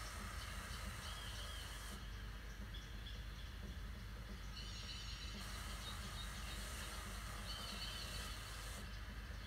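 Electronic performance sound: a steady low hum and hiss, with clusters of warbling, chirp-like tones, and a bright hissing layer that switches on and off abruptly about two seconds in and again between about five and nine seconds.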